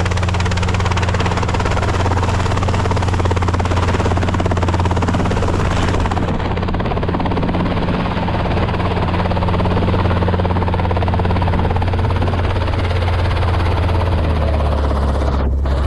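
RC model plane's motor and propeller running steadily with a low, even buzz over a wash of propeller noise. The pitch drops slightly near the end.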